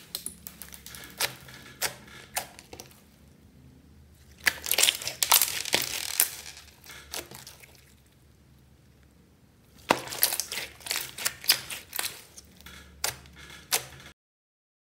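Large glossy slime with glitter and small beads mixed in, squished and pressed by hand: clusters of sticky clicks, crackles and pops, quieter for a few seconds in the middle. The sound cuts out abruptly near the end.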